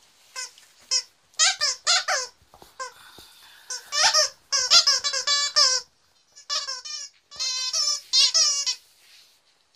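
Plush squeaky dog toy squeaking over and over as a cocker spaniel puppy chews it, in quick runs of squeaks with short pauses between.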